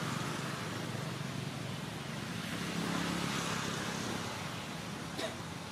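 Steady low rumble of a motor vehicle engine under outdoor background noise, with a single short click near the end.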